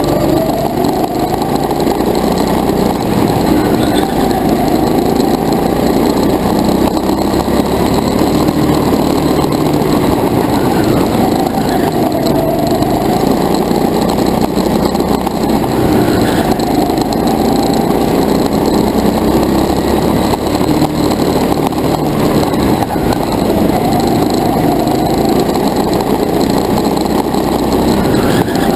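Go-kart engine running hard under load. Its pitch rises and falls repeatedly as the kart speeds up along the straights and slows for the corners.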